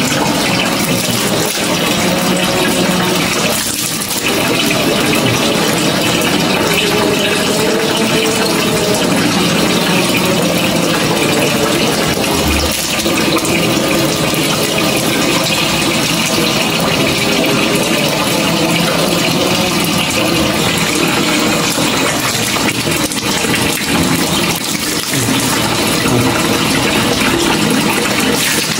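Water gushing and splashing steadily as spring water is poured from a plastic jug over a person's head.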